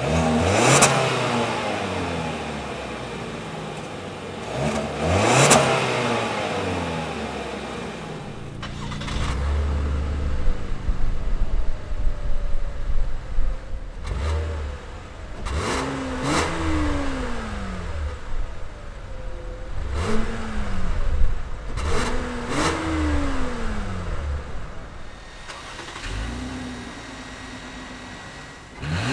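Car exhausts idling and being revved in place, three cars in turn. First a 2017 Lincoln MKZ 2.0T's turbocharged four-cylinder is blipped twice. Then a 2017 Buick LaCrosse's V6 is revved several times, each rev rising and falling quickly, and near the end a 2017 Lexus ES 350's V6 idles.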